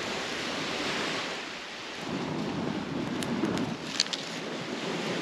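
A person blowing long breaths onto smouldering coconut husk and driftwood to coax a dead fire back into flame, a rushing blow swelling from about two seconds in, over a steady rushing background. A single sharp crack about four seconds in.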